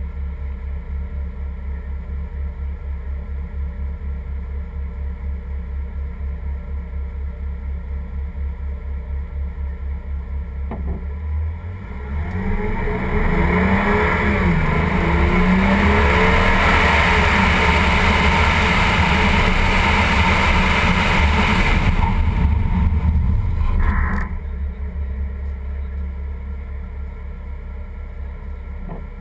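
BMW car idling with a steady low rumble, then accelerating hard, its engine note rising, with loud wind and tyre noise buffeting the outside-mounted camera. The noise falls away about two-thirds of the way through as the car slows, in an ABS braking-test run, and the low rumble continues afterwards.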